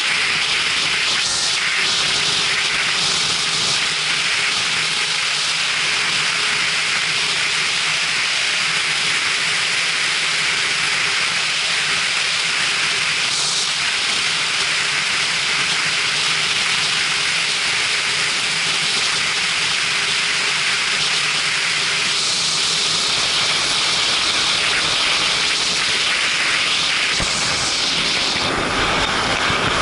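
Wind rushing over the microphone of a Kawasaki Ninja 300 riding at speed, a steady hiss, with the bike's parallel-twin engine droning faintly underneath; the engine note rises briefly at the start.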